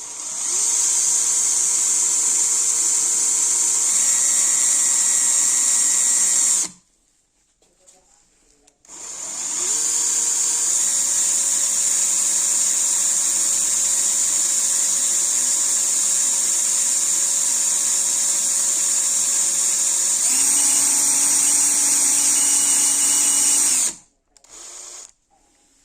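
Electric drill running in two long runs, the first about six seconds and the second about fifteen. Its motor winds up at each start and its pitch steps a few times, then it stops suddenly near the end.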